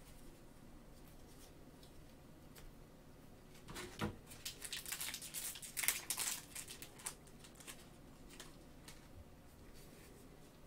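A light knock about four seconds in, then a few seconds of crinkling from the plastic cellophane wrapper of a trading-card pack being handled and opened.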